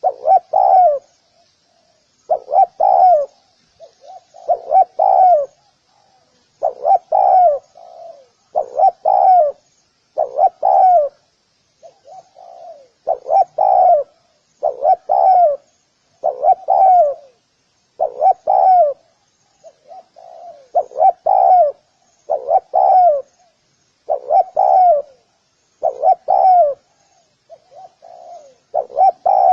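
Spotted dove cooing its repeated song: a phrase of two or three low cooing notes about every two seconds, some phrases opening with a softer lead-in note.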